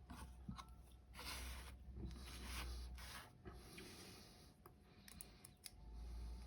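Faint rubbing and scraping of a dimple lock and metal picking tools being handled, with a few small sharp clicks past the middle.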